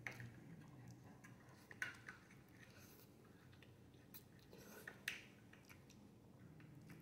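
Faint eating sounds as noodles are slurped in and chewed, with a few short wet mouth clicks about two, four and five seconds in.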